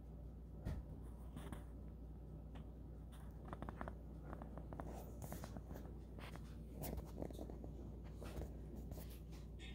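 Faint handling noise: scattered light clicks and soft scratchy paper rustles over a low steady hum.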